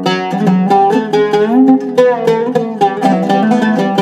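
Iraqi-style Zaryab oud with a cedar soundboard and walnut back, played solo with a plectrum: quick runs of plucked notes, with one note sliding in pitch near the middle.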